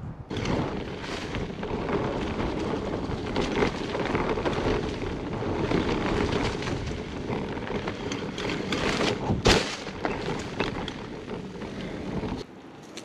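Hyper Explorer mountain bike being ridden fast along a dirt trail: a steady rumble of tyres on dirt and pine needles, with frame rattle and wind noise, and one sharp knock about nine and a half seconds in. The rumble stops suddenly near the end.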